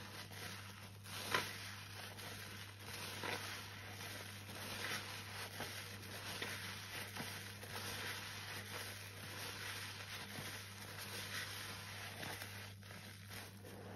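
A soapy sponge squeezed and kneaded by rubber-gloved hands in a basin of foam: continuous wet squelching and crackle of suds, with a sharper click about a second in.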